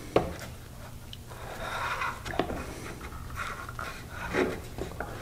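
Chisel plane paring dried glue off an oak surface: a few rough, hissing scraping strokes with a couple of sharp clicks.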